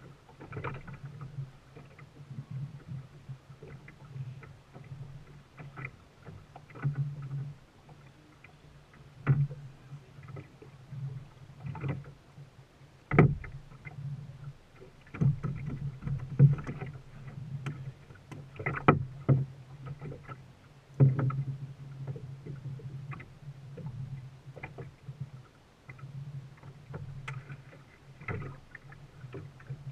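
Water sloshing around a boat, with a steady low hum and many irregular knocks and clicks; the strongest knock comes about 13 seconds in.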